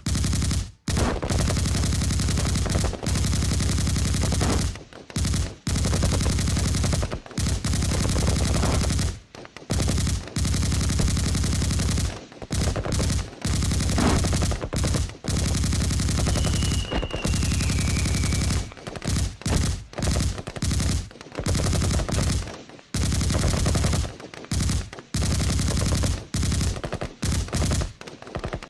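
Machine gun firing rapid bursts of varying length, separated by short pauses.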